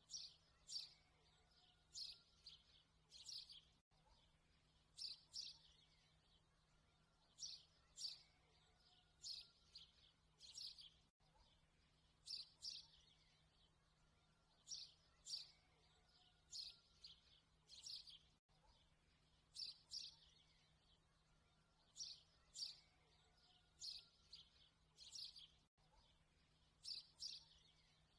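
Faint bird chirping in short high clusters that repeat in the same pattern about every seven seconds, a looped background track, over a faint steady low hum.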